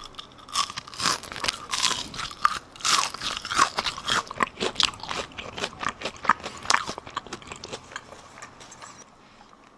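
Crunchy chewing of a bite of deep-fried meat in a beer-and-starch batter, many sharp crackling crunches that thin out and fade over the last couple of seconds. The crunch comes from the crisp fried batter crust.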